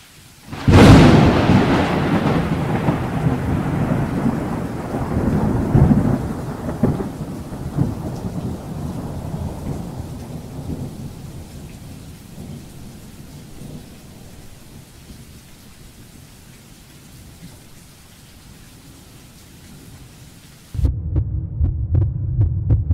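Thunder: a sudden crack about a second in, then a long low rumble that slowly dies away over some ten seconds. Near the end a steady low throbbing beat starts.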